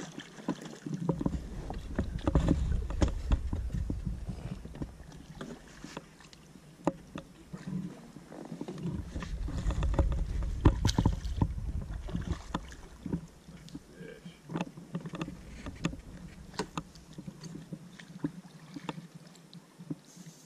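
Inflatable fishing raft on the water: scattered knocks and clicks from the raft's oar frame and fishing gear, with water sounds as a hooked fish is brought to the landing net at the side. A low rumble comes in twice, several seconds each time.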